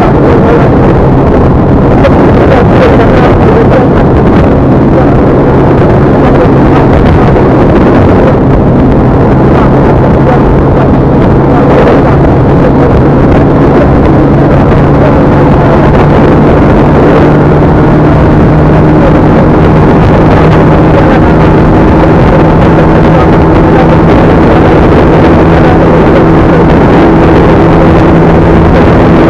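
A vehicle engine running steadily under heavy road and wind noise, its hum creeping slightly higher about halfway through. The recording is overloaded, near full loudness throughout.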